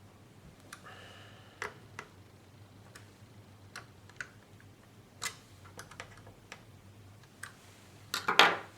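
Irregular light clicks and taps on a Lenovo 3000 N100 laptop, about a dozen spread out, with a louder quick clatter near the end.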